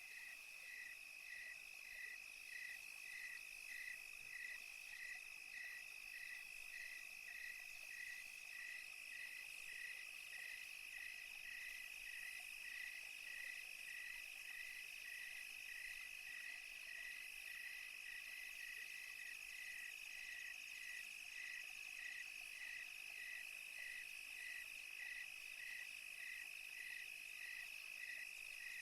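Night insects calling, crickets: a steady high trill under a regular chirp repeating about one and a half times a second.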